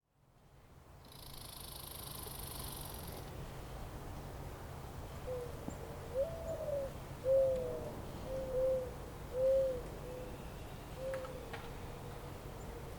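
A bird giving a series of about eight short, low calls, some sliding slightly upward, over a steady low rumble. A soft hiss sounds for about two seconds near the start.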